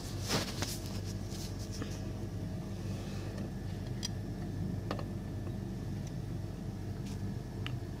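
Steady low machine hum, with a cluster of light clicks about half a second in and a few single clicks later.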